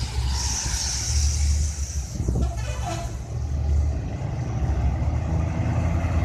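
Large bus's diesel engine running close by with a deep, steady drone. A hiss sounds in the first couple of seconds, and a brief pitched sound comes about two and a half seconds in.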